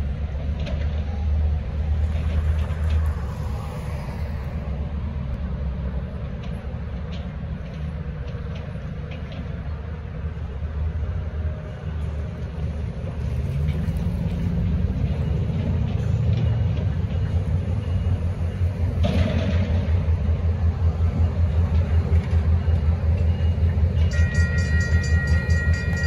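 Road traffic passing over a steady low rumble. About two seconds before the end, the railroad crossing's warning bell starts ringing rapidly and steadily as the crossing activates.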